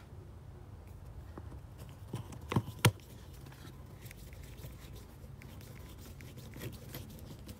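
Hands working on plastic engine-bay parts, with small scrapes and ticks and two sharp clicks close together about two and a half seconds in, as clips or a cover snap into place.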